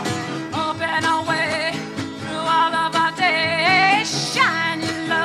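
A song with a woman singing, her voice wavering with vibrato, over sustained instrumental backing.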